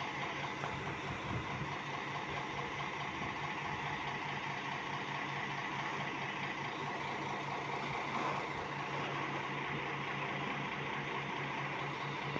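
Mercedes-Benz Citaro city bus's rear-mounted engine idling steadily while the bus stands still, heard from just behind it: an even low hum.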